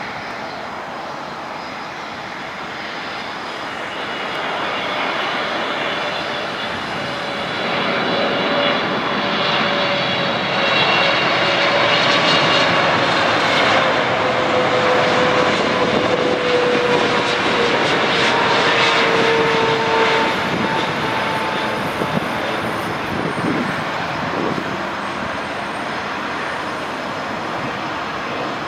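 Boeing 777-300ER on final approach with its twin GE90-115B turbofans running: a jet roar that builds over the first several seconds and peaks as the airliner passes, with whining tones that slowly fall in pitch, then eases as it heads for the runway.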